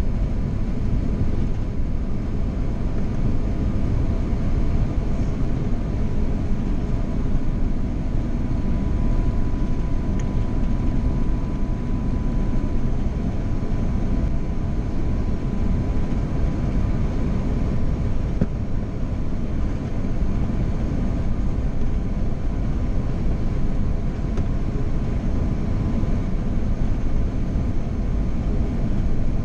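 Airbus A330-200 cabin noise in flight, heard from a window seat beside the wing: a steady deep rumble of the jet engines and airflow, with a faint steady tone above it.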